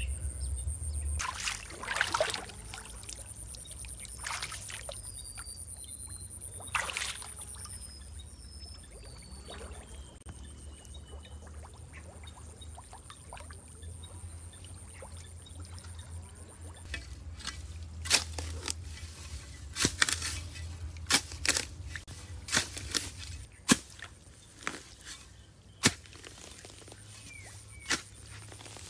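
Splashing and wet mud slapping into shallow water as a man wades and digs earth from a ditch bank with a hoe to build a small dam, with a run of sharper splashes and thuds in the second half. A steady high insect trill runs underneath, with a few short bird chirps in the first half.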